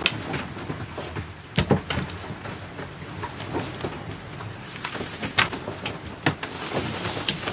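Large paper nautical chart rustling and crinkling as it is spread and smoothed on a chart table, with several short sharp taps and rustles, over a steady low background noise.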